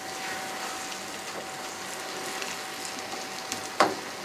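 Egg omelette with spinach sizzling steadily in a frying pan, with one sharp scrape of a spatula against the pan near the end.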